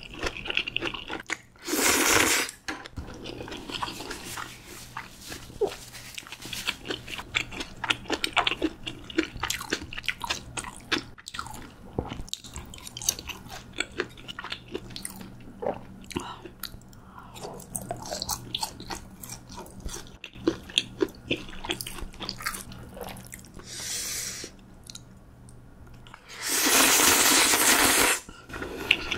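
Close-miked eating sounds: two long, loud slurps of spicy stir-fried noodles, one about two seconds in and one near the end. Between them comes steady chewing, with many small clicks.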